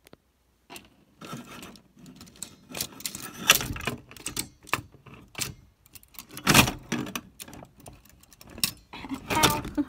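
Smith Corona Corsair Deluxe typewriter mechanism being worked by hand: irregular metal clicks, clacks and rattles of its parts, with louder knocks about three and a half and six and a half seconds in.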